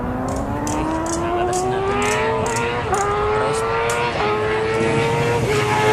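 Racing engine sound effect accelerating hard, its pitch climbing steadily and dipping briefly at each gear change, three or four shifts in all, with sharp clicks over it.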